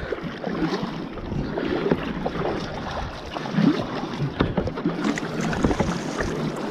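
Water sloshing and splashing against a kayak's hull on a lumpy sea, with wind on the microphone.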